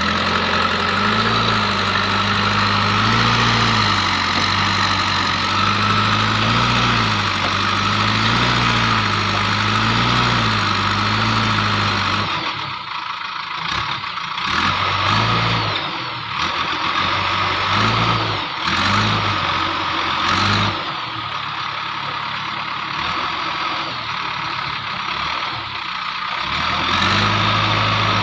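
JCB 3DX backhoe loader's diesel engine working under digging load, its pitch rising and falling over and over, about every second and a half. About halfway it drops to softer, uneven running, then picks up again near the end.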